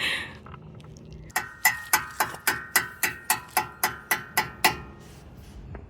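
A ratchet clicking in a steady run of about four metallic clicks a second, each with a bright ring.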